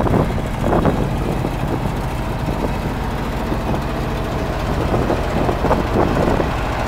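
A 1969 International Loadstar 1600's 460 V8 idling steadily, with a little wind on the microphone.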